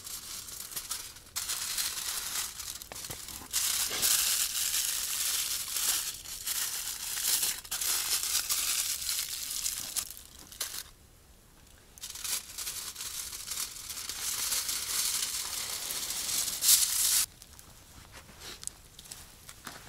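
Crinkly rustling and crumpling of bags or other gear being handled and packed, in long spells with a short quiet pause about halfway, stopping shortly before the end.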